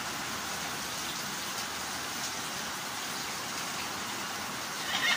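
A steady rain-like hiss, and near the end a short, loud, harsh call from a parrot.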